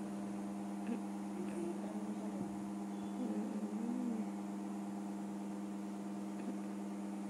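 Steady electrical hum at a low, fixed pitch with several overtones, with a few faint, soft voice sounds about two to four seconds in.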